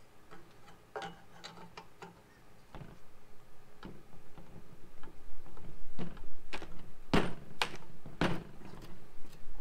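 A perforated tab on the radiator assembly being worked back and forth with pliers and broken off: a run of light clicks and ticks that grows louder, with several sharp cracks in the last few seconds.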